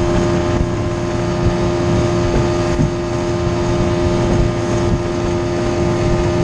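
Mercury 25 hp two-stroke outboard motor running steadily at speed, pushing a jon boat through the water, with an even droning pitch that holds throughout.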